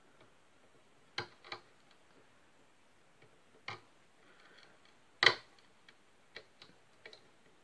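Wood chisel nibbling small chips out of a guitar headstock along scored lines: a handful of irregular sharp clicks and snaps, the loudest about five seconds in.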